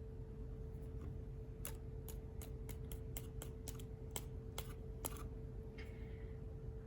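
A quick run of about a dozen sharp clicks and taps over a few seconds: a paintbrush tapped to spatter flecks of watercolour onto card stock.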